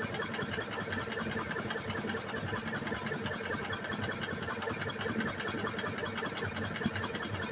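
2000 EZGO golf cart's gas engine being cranked over steadily by its starter without catching, a constant even churning with a fast pulse. The engine will not fire because there is no spark.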